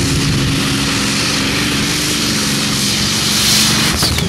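Dragonfire pulling tractor's supercharged, methanol-burning, spark-ignition 42-cylinder Zvezda M503 engine running hard under load, a loud steady drone. Near the end a high whine falls in pitch and a few sharp cracks ring out.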